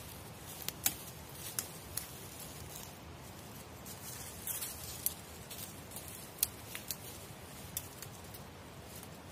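Dry twigs and dead leaf litter crackling as a person steps through and pulls at dead brush, with a dozen or so sharp, irregular snaps.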